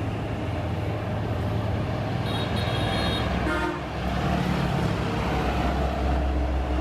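Highway traffic passing close by, a steady rumble of engines and tyres. A vehicle horn toots for about a second a couple of seconds in.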